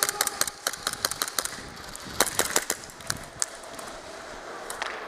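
Airsoft guns firing: an irregular string of sharp snaps, several a second, that thins out after about three and a half seconds.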